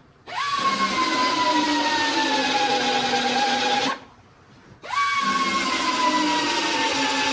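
Handheld power tool run in two long bursts, its motor whine starting high each time and sagging steadily in pitch as it works under load.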